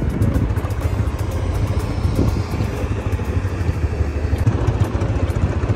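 ATV engine running as the quad rides along a gravel quarry road, a steady low rumble.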